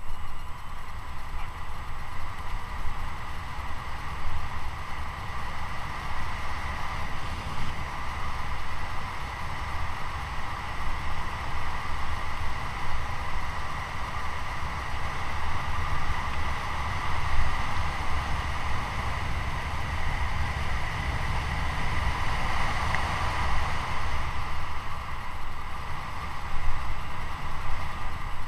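Wind buffeting the microphone of a mountain bike coasting fast down an asphalt road, with a steady whirring hum from the rolling bike that swells briefly a few seconds before the end.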